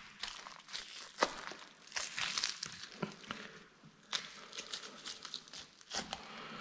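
Boning knife slicing through raw pork leg meat and connective tissue along a muscle seam, a soft wet tearing with scattered short clicks and crackles.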